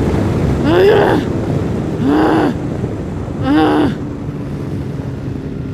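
Wind rushing over the microphone on a moving sport motorcycle, with the engine running underneath. A woman gives three short frightened cries, each rising and then falling in pitch.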